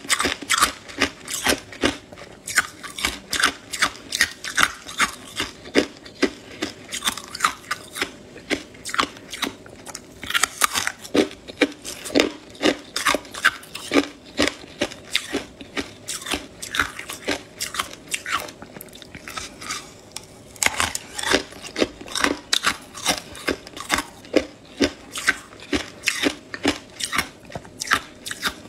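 Hard ice being bitten and chewed: a steady run of sharp, brittle crunches, two or three a second, with a short lull about two-thirds of the way through.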